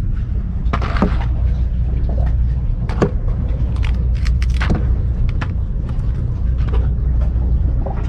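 A steady low rumble with scattered short knocks and rustles, from a paper plate swinging on its cords as it is lowered, with a knock near the end as it comes down onto concrete.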